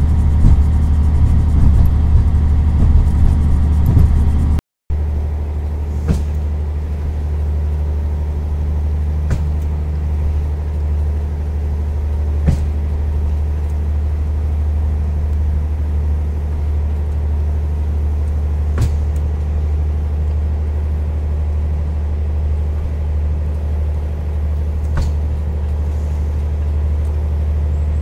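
A moving train heard from the cab: a steady low rumble with a sharp click about every three seconds. The sound cuts out briefly about five seconds in, then carries on a little quieter.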